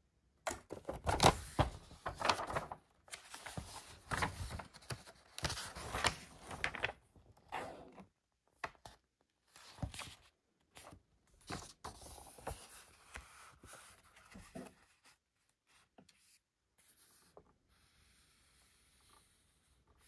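Hands handling plastic and packaging: dense rustling, scraping and tearing for the first several seconds, with sharp clicks, then thinning out to scattered clicks and faint rustles.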